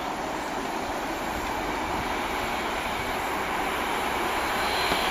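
Class 66 diesel-electric freight locomotive approaching from a distance: a steady sound growing gradually louder as the train draws nearer.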